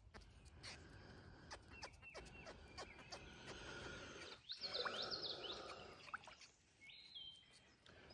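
Small birds chirping in short calls, with a cluster of quick calls about halfway through, over faint outdoor background noise and scattered light clicks.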